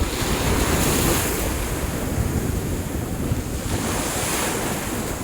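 Sea waves washing against the shore, with wind buffeting the microphone in a low rumble. The wash swells about a second in and again near the end.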